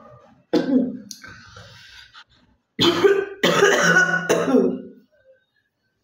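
A woman coughing a real cough with phlegm: a single cough about half a second in, then a fit of three loud coughs from about three to five seconds in.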